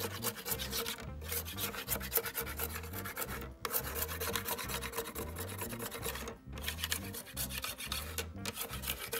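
Old foam surround residue being scraped off a loudspeaker's frame by hand: fast, rhythmic back-and-forth rasping strokes, with brief pauses every two to three seconds.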